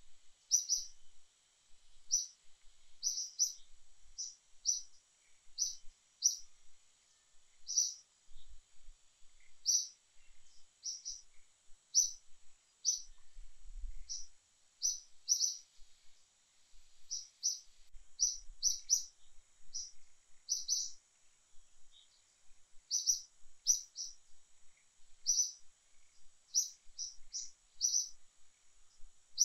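A small bird chirping, short high notes repeated irregularly about one or two a second, over a faint steady high hiss.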